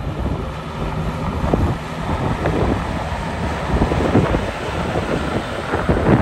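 Engine of a 1975 Ford F750 winch truck running as the truck drives up slowly and passes close by, growing louder as it approaches. Wind buffets the microphone throughout.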